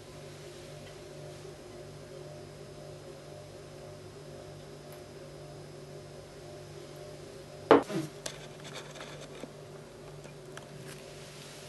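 Faint steady hum while beer trickles slowly from a bottle into a glass. About eight seconds in comes a single sharp knock with a brief falling ring, then a few light clicks, as glassware is set down and handled on the table.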